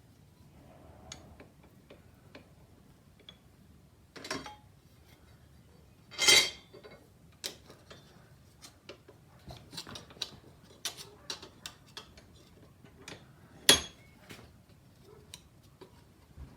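Scattered clinks and taps of metal parts and hand tools being handled on a workbench, with a louder clank about six seconds in and a sharp knock near the end.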